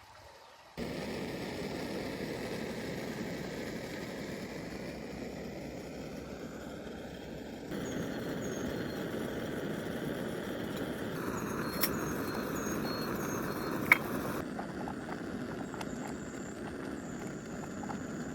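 Creek water rushing steadily, in several segments that start and change level abruptly, with a few faint high chirps and one sharp click.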